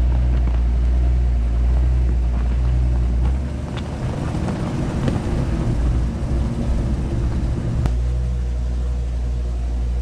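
Jeep engine running steadily at low speed while driving along a gravel trail, heard from a camera mounted on the vehicle. From about three to eight seconds in the low sound turns rougher and uneven, then steadies again.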